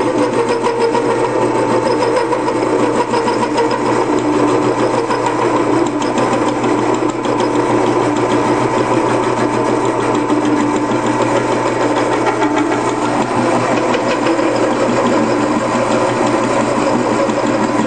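Harbor Freight 10 x 18 wood lathe, converted to cut metal, turning a threaded rod. The cutting tool skips from thread to thread, giving a rapid, even thumping over the steady hum of the lathe.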